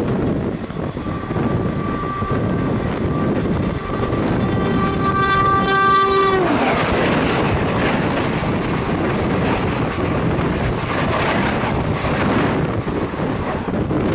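An oncoming electric locomotive's horn sounding for about five seconds, its pitch dropping sharply as it passes about six and a half seconds in. Then the rushing clatter of a Rajdhani Express's coaches passing close by on the adjacent track, heard from the doorway of a moving train with wind on the microphone.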